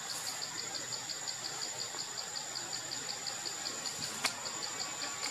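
Insects chirping: a high pulsing chirp repeating evenly about five times a second over a continuous high whine. A single sharp click sounds a little past four seconds in.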